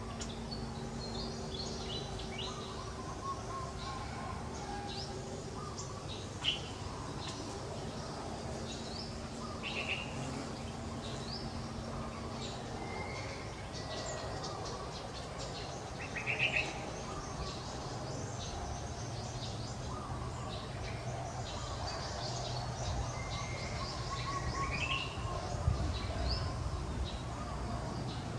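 Several birds chirping, with many short calls scattered throughout, over a faint steady low hum that fades out about halfway through.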